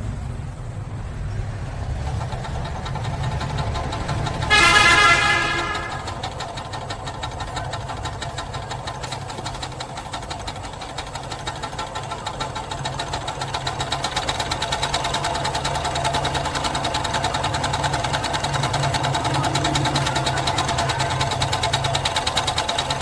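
Homemade steam engine, a refrigerator-compressor shell boiled over a gas burner feeding a single cylinder that turns a flywheel, running with a fast, even knocking beat that grows louder in the second half. About four and a half seconds in, a loud horn-like tone sounds for about a second.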